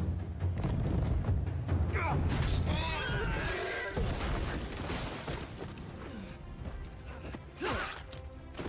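Film soundtrack of a battle scene: dramatic score over a horse's shrill scream, wavering up and down, from about two to four seconds in, as the horse falls. A brief second cry comes near the end.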